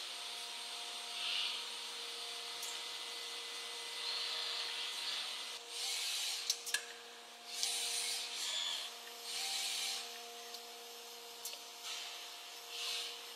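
Brother BV7-870 robot loading system on a Speedio CNC machine in operation: a steady machine hum with several held tones, broken every second or two by short bursts of hiss, with two sharp clicks a little past the middle.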